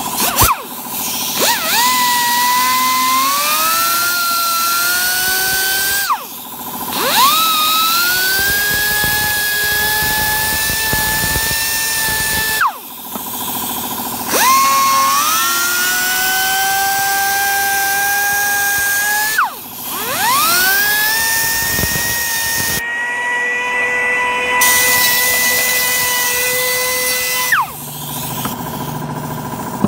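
Small high-speed electric rotary tool switched on four times, each time spinning up with a quick rising whine to a steady high whine for several seconds, then cutting off sharply. It is working the plastic in a plastic-welding repair.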